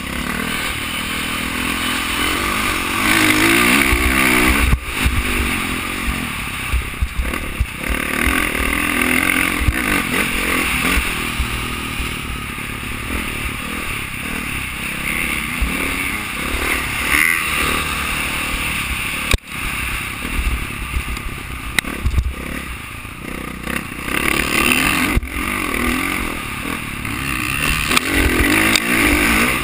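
Dirt bike engine revving up and down continuously while being ridden, heard from a helmet-mounted camera, with a low wind rumble on the microphone.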